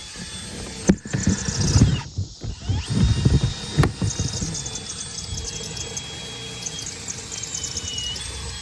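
Plastic door card of a Hyundai Genesis Coupe being pried off the door by hand, the panel creaking and squealing with several sharp pops as the retaining clips let go.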